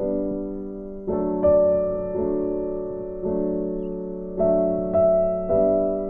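Background music: a slow, soft piano tune, with chords struck every half second to a second and left to fade.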